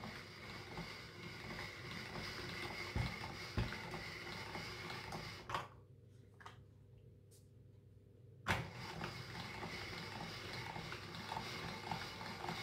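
Hand-cranked chrome pasta-rolling machine turning as a sheet of dough is rolled thin between its steel rollers: a steady mechanical whirring. It stops for about three seconds after the first pass, with a click or two, then starts again for a second pass.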